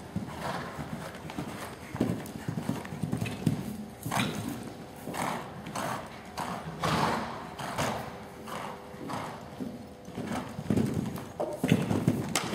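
Hoofbeats of a warmblood horse cantering on a sand arena surface: a repeating run of muffled strides, about one every half second to second.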